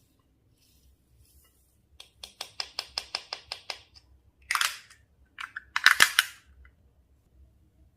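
Slime being worked by hand: a quick run of small popping clicks, about seven a second, then two louder bursts of crackling pops, the second the loudest.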